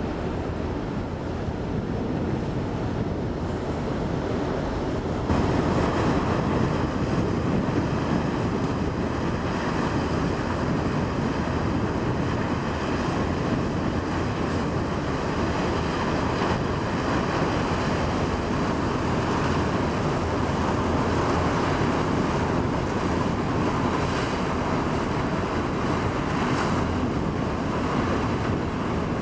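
Steady rushing noise of wind on the microphone over the churning white wake of the Benchijigua Express fast ferry as it pulls away under power. It gets louder about five seconds in.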